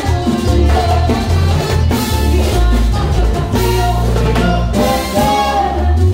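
Live Latin band playing salsa: a bass line, congas and other hand percussion, with horn and sung lines over them.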